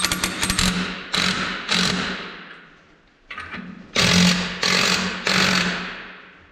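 Cordless DeWalt impact wrench running lug nuts down on a dually's outer rear wheel in a series of short hammering bursts, about six in all, with a pause in the middle. The nuts are being snugged to seat the wheel before final torquing.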